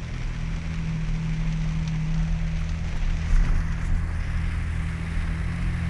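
Vehicle engine running steadily at low speed, with a hiss of tyres pushing through floodwater.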